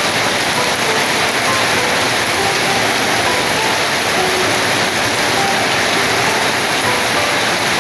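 Heavy rain falling steadily in strong wind, a dense even hiss.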